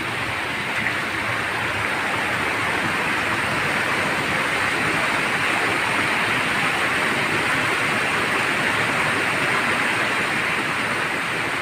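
Shallow rocky stream rushing steadily, with water spilling over a low concrete edge close by.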